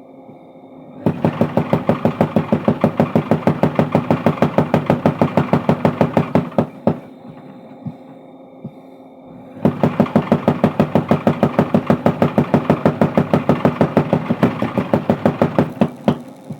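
Mechanical power hammer (forging machine) pounding a steel bar in two long runs of rapid, even blows, several a second, stopping for about three seconds in between while its motor keeps humming.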